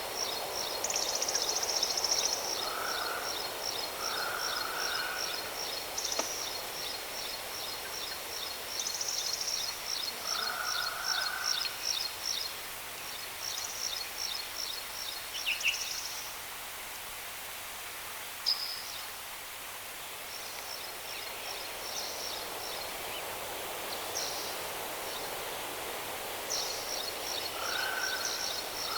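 Steady rush of a waterfall with birds calling over it: a high, rapid pulsing trill that comes in runs, and short lower calls now and then.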